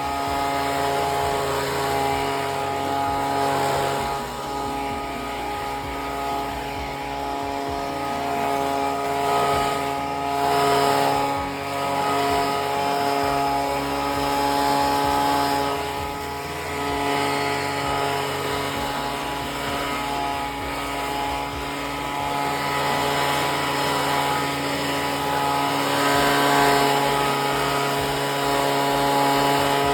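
Gasoline lawnmower engine running steadily through leaves, with a constant pitch and slight swells in loudness.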